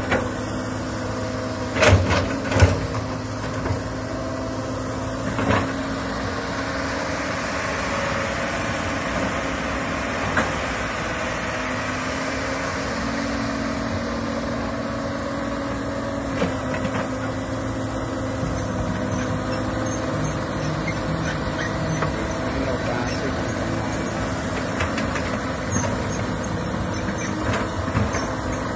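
Komatsu tracked excavator's diesel engine running steadily as the machine digs and moves soil. Two sharp metal clanks come about two seconds in and another a few seconds later, and a hiss swells and fades around the middle.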